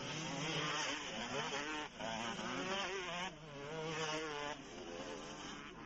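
Several motocross bike engines revving as they race over the track, a high buzzing whose pitch rises and falls with the throttle.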